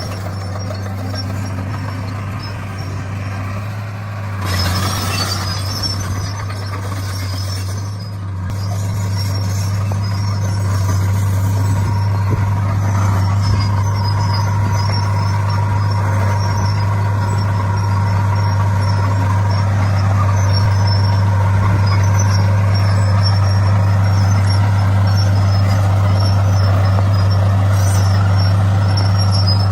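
Komatsu D41 bulldozer's diesel engine running steadily as the machine works stone, a low drone that grows louder about ten seconds in. A short burst of noise comes about four seconds in.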